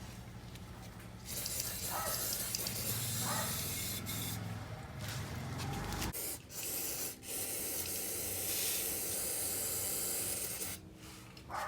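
A hissing spray in three long bursts with short breaks between them, typical of an aerosol can being sprayed during the oil change.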